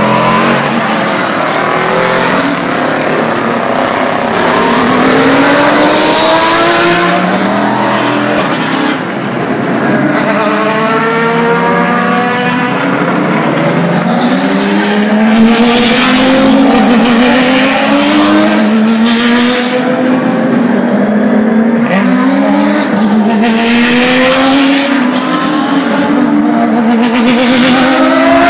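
Grand-Am race cars, a Daytona Prototype and GT cars, accelerating hard out of pit lane one after another, their engines revving up through the gears in repeated rising runs with upshifts between them.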